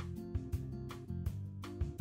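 Background music with a steady beat over held low chords.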